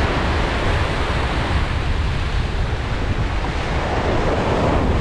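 Ocean surf washing and breaking over shoreline rocks, a steady loud wash with one wave surging louder near the end, and wind buffeting the microphone.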